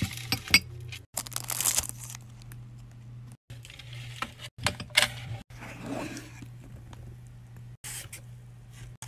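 Handling noises from nail supplies: long acrylic nails clicking on a plastic glitter palette, with rustling and scraping, and near the end a cardboard box being opened. A steady low hum runs underneath, and the sound breaks off abruptly several times.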